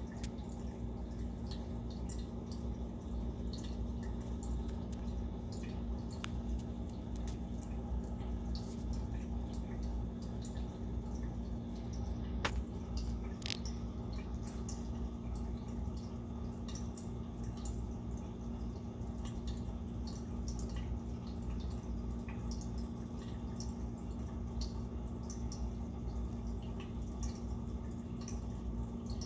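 Aquarium filter water bubbling and dripping: a stream of small irregular drips and pops over a steady low hum, with one sharper click about halfway through.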